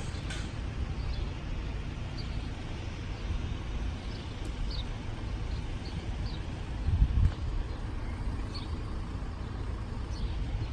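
Wind rumbling on the microphone with a few short, faint bird chirps, and a louder gust about seven seconds in.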